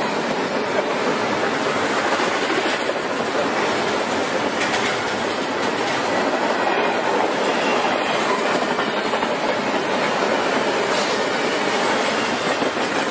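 A long BNSF freight train's cars rolling past at speed: steady wheel-on-rail noise with clickety-clack from the wheels.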